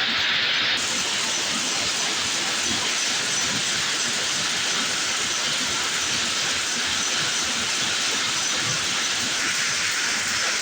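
Chinese-made rapier weaving loom running steadily, a dense, even mechanical clatter with a hiss over it.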